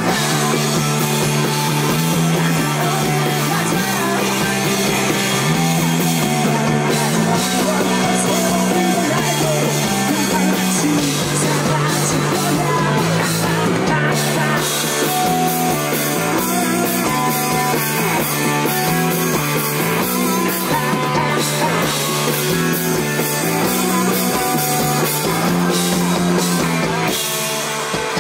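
Live rock band playing loudly: electric guitars, electric bass and drum kit, with sung vocals over a bass line that steps between a few notes. The music dips briefly in loudness near the end.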